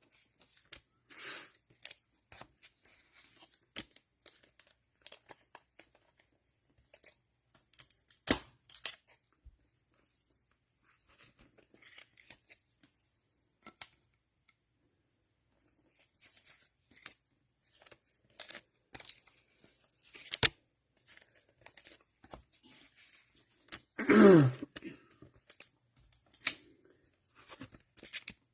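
Cellophane wrappers of 2022 Mosaic football cello packs being torn open and crinkled, with scattered light clicks and rustles as the cards are handled. About three-quarters of the way through there is one louder short sound that falls in pitch.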